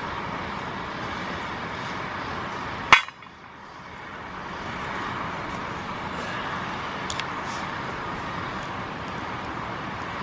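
A sharp metallic clink about three seconds in as the lid of a small stainless camp pot is handled with a metal fork, then a few faint clicks of a utensil stirring in the pot, over a steady hiss.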